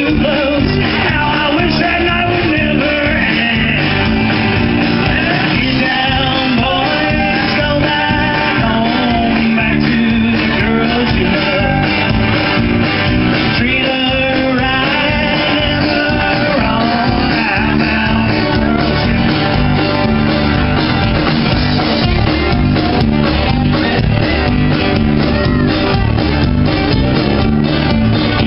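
Live band playing a song: guitars and drums with a lead vocal singing over them, loud and continuous.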